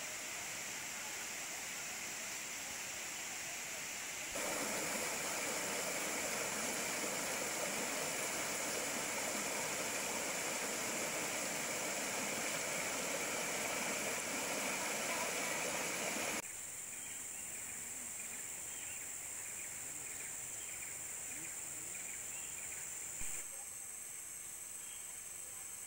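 Steady rushing water, like a stream, under a steady high-pitched hum. It gets louder and fuller a few seconds in, drops back down about two thirds of the way through, and shifts again near the end.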